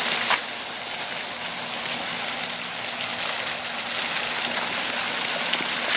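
Large outdoor fountain's water jets spraying and splashing down in a steady rushing hiss, with one short click about a third of a second in.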